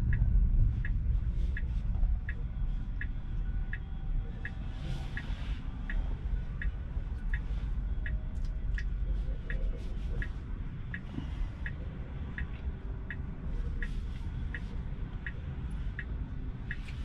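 Tesla Model 3 turn-signal indicator ticking steadily in the cabin, about three ticks every two seconds, over a low steady cabin rumble.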